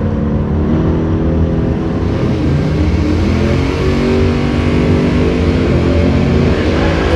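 Two V8 muscle cars at full throttle down a drag strip. The engine note climbs, drops back at each gear change, then climbs again.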